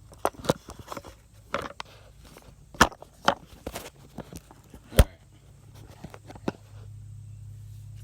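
Handling noise from working under the van: a run of irregular clicks, knocks and rustles, with two sharper knocks about three and five seconds in. A low steady hum comes in near the end.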